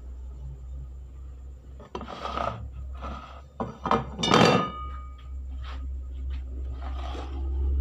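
Metal baking pan clattering and knocking against a board as a cake is turned out of it, with several knocks and one loud ringing clang about four seconds in, over a steady low hum.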